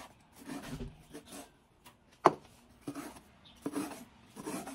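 Chinese cleaver chopping through a toon-and-egg omelette and striking a wooden cutting board in separate knocks about once a second, one stroke near the middle much louder than the rest.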